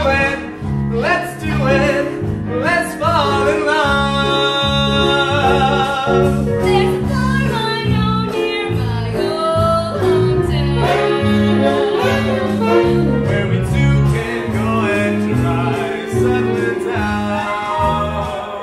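Show tune sung live by a woman and a man over instrumental accompaniment with a steady pulsing bass. The voices waver with vibrato on long held notes.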